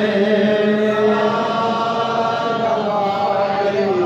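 A man's solo voice chanting a devotional recitation, drawing out one long melodic note whose pitch wavers slowly and dips near the end.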